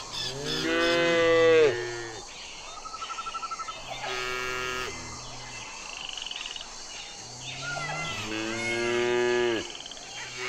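Cattle mooing: three calls, the first and last long and dropping in pitch at the end, a shorter steady one between.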